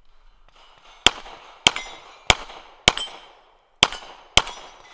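Glock 17 9mm pistol fired six times in quick succession, about half a second apart with a slightly longer pause before the fifth shot. Steel targets ring after the hits.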